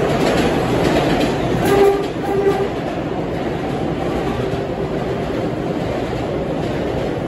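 New York City Subway R142A train running through the station without stopping, its cars rumbling and clattering past on the rails. A tone sounds on and off over the first two and a half seconds; after that it settles into an even rumble as the cars go by.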